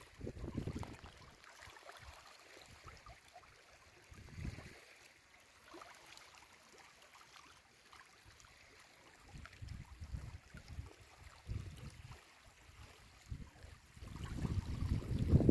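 Small waves lapping and trickling gently among the stones at the edge of a lake. Wind buffets the microphone with low rumbles in the first second and again near the end.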